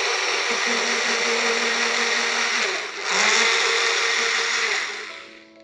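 Small personal blender with a red motor base and push-down cup running, its motor whirring steadily as it blends buttermilk. It eases briefly about three seconds in, runs on louder, then winds down near the end.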